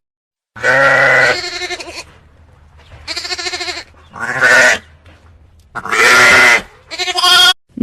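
Sheep bleating: several loud, wavering bleats in a row, each lasting half a second to a second.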